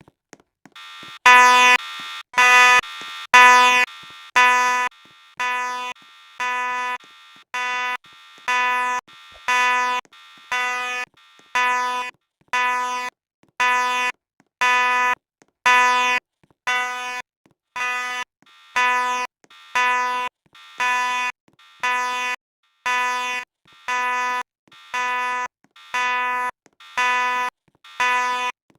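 Fire alarm sounding: a buzzy electronic beep repeating about once a second, starting about a second in. The first few beeps are louder than the rest.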